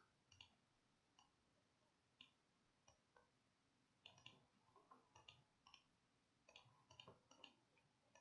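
Faint computer mouse clicks, scattered and then coming in small clusters about four seconds in and again around seven seconds in.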